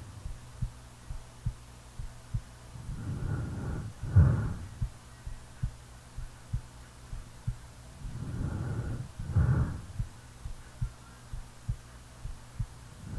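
A sleeping woman's heartbeat, heard as soft low thumps a little faster than one a second, with her snoring breaths swelling twice over a low steady hum.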